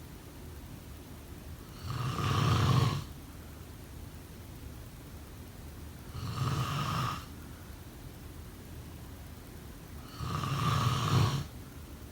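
A sleeping person snoring: three snores, each about a second long and roughly four seconds apart, with a steady faint hiss between them.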